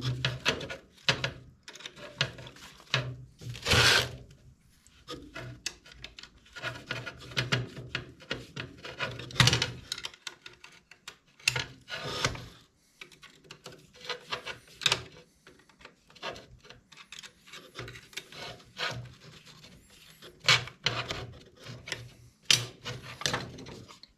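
Hand work on a clamp-based hydraulic quick coupler tool being assembled: irregular clicks, knocks and rubbing or scraping of metal and plastic parts, with a louder scrape about four seconds in.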